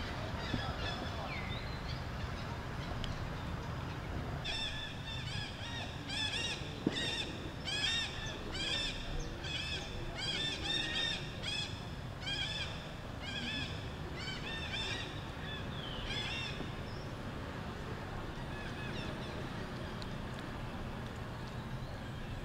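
Monkeys calling: a run of short, high-pitched calls, each rising and falling, about two a second, starting a few seconds in and stopping about three-quarters of the way through.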